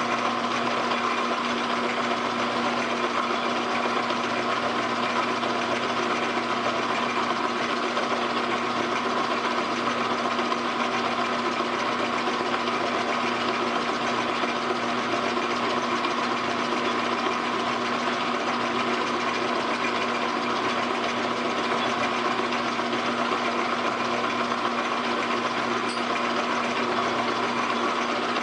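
Metal lathe running steadily with a constant motor hum, its chuck spinning a brass bar while a twist drill in the tailstock drills a hole into it.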